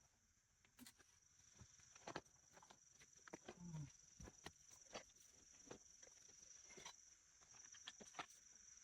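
Faint outdoor quiet with a steady high-pitched insect trill, with scattered small clicks and taps.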